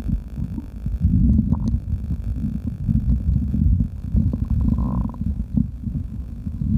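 Human stomach rumbling and gurgling with fluid after drinking: a continuous, uneven low churning, with a short higher-pitched gurgle about one and a half seconds in and another around five seconds in.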